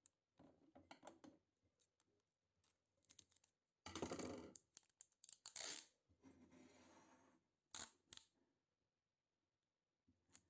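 Faint hand-tool and parts handling on a workbench: scattered clicks and scrapes, with a louder spell of scraping about four to six seconds in and a couple of sharp clicks near eight seconds.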